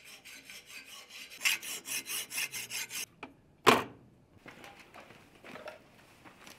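Chalkboard eraser rubbed in quick, even strokes, about five a second, growing louder about a second and a half in and then stopping. A single sharp knock follows, louder than the rubbing, then faint shuffling.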